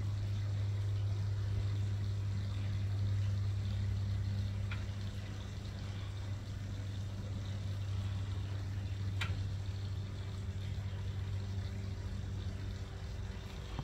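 Steady low mechanical hum over a faint noise haze, with a few faint, very short high ticks about five and nine seconds in.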